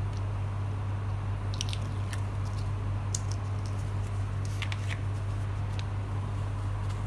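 A steady low hum throughout, with a few faint short crackles from a pointed pick lifting the adhesive cover film off a sand-painting board.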